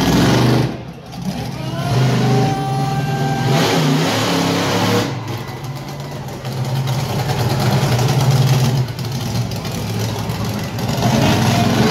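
Monster truck engine revving hard, its pitch rising and falling with the throttle, with brief drops in revs about one second in and again around five seconds.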